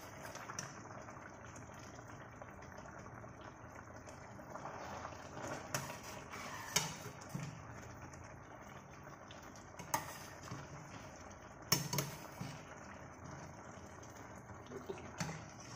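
Sprite and oyster-sauce braising liquid simmering steadily around a whole chicken in a stainless steel pot, with several sharp clicks over the bubbling.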